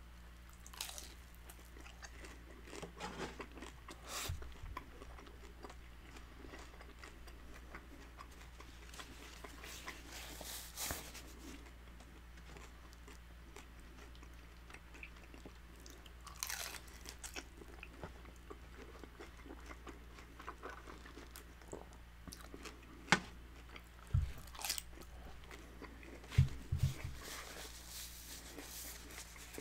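Close-up chewing and crunching of crispy fried-tortilla birria tacos dipped in consommé: irregular crackles and wet bites. A few sharper knocks come near the end.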